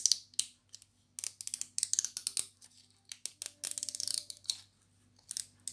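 Plastic blind-bag wrapper of a mystery squishy being torn open and handled: irregular bursts of crinkling and crackling plastic, in several clusters with short pauses between.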